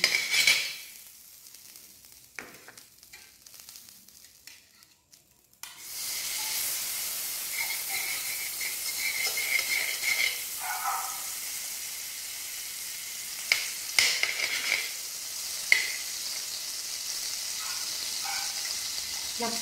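Margarine melting and sizzling in a metal wok, a quiet start that turns into a steady frying hiss about six seconds in. A metal spoon stirring the margarine clicks and scrapes against the pan a few times.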